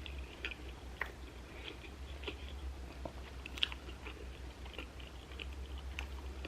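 Close-miked chewing of food, with scattered small wet clicks and crunches, over a steady low hum.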